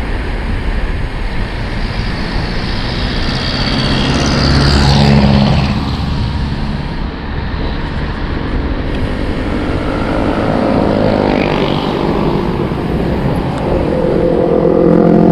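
Wind rushing over the microphone on a fast bicycle descent, with motor vehicle engines passing close by, louder about four to five seconds in and again near the end.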